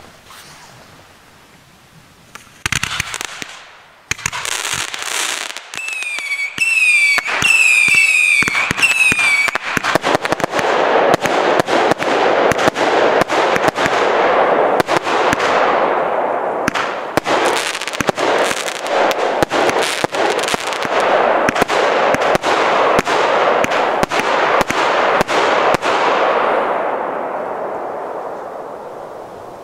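Draupner fireworks cake from Polarlys firing. It opens with a hiss and a launch thump, then a few seconds of shrill whistling shots, then a long dense run of crackling bangs that dies away near the end.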